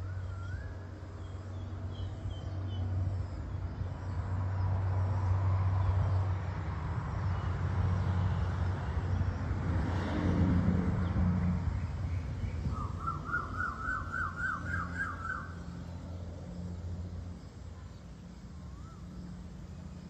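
Engine noise of a passing vehicle, a low hum under a rushing sound that swells to its loudest about halfway through and then fades. Birds chirp over it, with a fast trill of about ten rising notes about three-quarters of the way in.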